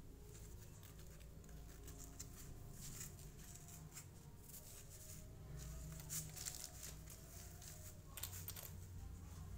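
Faint rustling and scattered soft clicks from a fabric-and-faux-leather billiard cue case and its padded strap being turned over in the hand.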